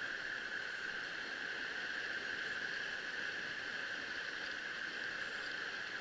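Steady rush of a small mountain stream's water flowing over rock, an even hiss with no breaks.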